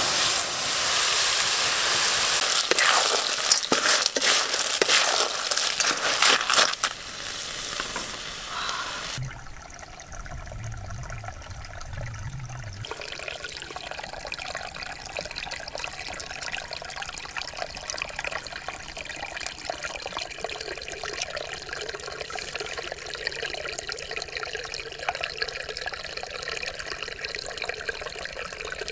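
Stir-fry sizzling and crackling loudly in a wok over leaping open flames for about the first nine seconds. After a brief low hum, a shallow stream trickles steadily while a hand sweeps through the water.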